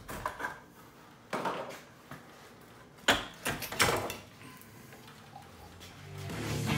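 Wooden framing lumber knocking and clattering as boards are handled and carried, with a few separate knocks and the loudest about three seconds in. Music fades in near the end.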